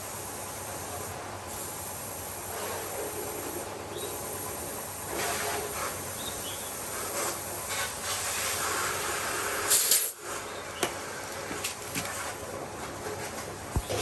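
Steady hiss of air, with a short, louder blast about ten seconds in and a few clicks after it.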